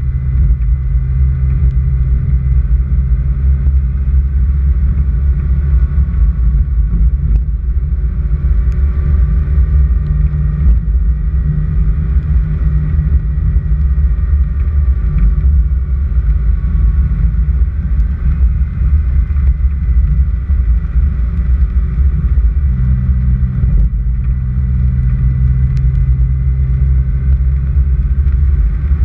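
Car driving slowly on a gravel road: a steady low rumble of engine and road noise, with the engine note stepping up about three-quarters of the way through.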